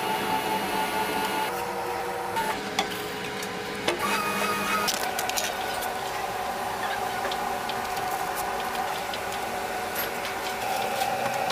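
Steady mechanical whirring of a kitchen machine motor with a constant hum, broken by a few brief clicks and knocks.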